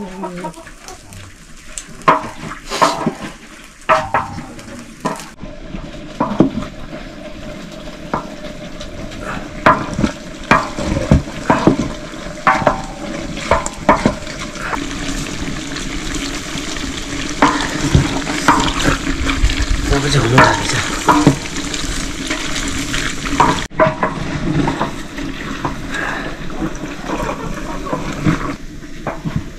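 Pork frying in a pan, sizzling, with a utensil scraping and knocking against the pan as it is stirred. The sizzling sets in suddenly about five seconds in.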